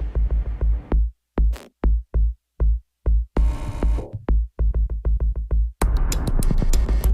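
Electronic background music with a drum-machine beat and synthesizer. The beat drops to sparse single hits about a second in, then builds back into a dense full mix near the end.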